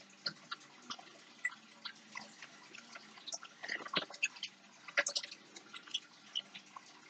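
Small, irregular clicks and ticks from fingers handling a thin wire paper clip and small tools on a tabletop, a few sharper taps around four and five seconds in.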